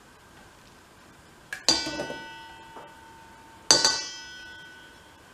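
Stainless steel mixing bowl knocked twice, about two seconds apart, each clang ringing on for about a second, as puréed sweet potato is scraped from a glass measuring cup into it.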